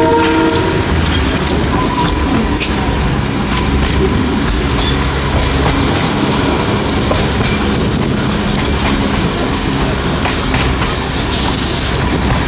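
Darjeeling Himalayan Railway narrow-gauge toy train running, a steady rumble with wheels clicking over rail joints. A horn blast dies away in the first second, and there is a short hiss near the end.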